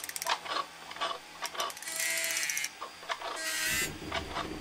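Mechanical sound effects for animated robotic arms: a run of sharp clicks and ratchet-like clacks, with two short whirring hisses, one about two seconds in and another near the end.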